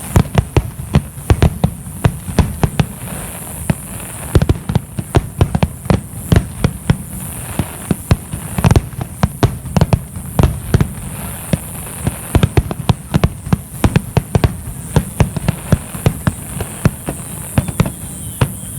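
Fireworks display: a dense, irregular barrage of sharp bangs, often several a second.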